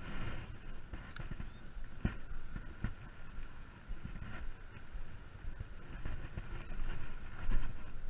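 Wind buffeting the microphone of a head-mounted action camera: an uneven low rumble that swells and fades, with a few soft knocks from handling the rod and camera.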